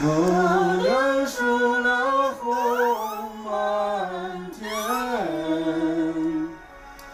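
A single voice singing a slow song with little or no accompaniment: long held notes joined by upward slides. The voice breaks off shortly before the end.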